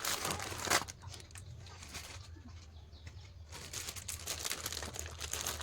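Plastic snack packaging rustling and crinkling as it is handled, in irregular bursts near the start and again in the second half, over a steady low hum.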